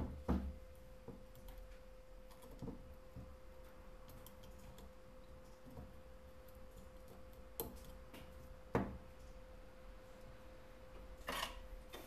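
Scattered clicks and knocks of a metal helping-hands stand being adjusted and its alligator clips snapping onto a phone's logic board. A faint steady hum runs underneath.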